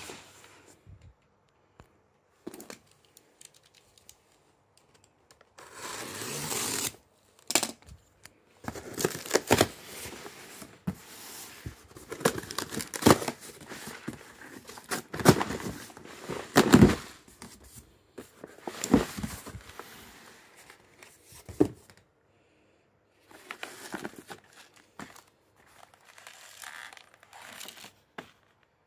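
Cardboard shipping box being opened by hand: tape torn off and cardboard and the plastic-wrapped noodle cups inside handled, in irregular bursts of tearing and crinkling with short pauses between.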